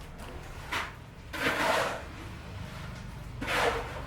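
Repeated rough scraping strokes, about one every two seconds, each lasting around half a second, with a steady low rumble underneath.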